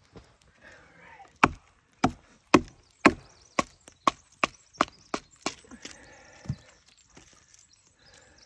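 Batoning: a wooden baton strikes the spine of a knife about a dozen times, roughly two blows a second, driving the blade down through a stick of resin-soaked pine fatwood and splitting it into kindling. The first few blows are the loudest.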